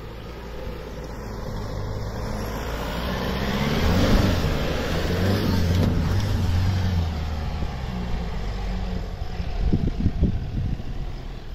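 Isuzu D-Max V-Cross pickup's diesel engine revving hard as it powers up a soft sand dune. The revs climb to a peak about four seconds in, hold for a couple of seconds, then ease off.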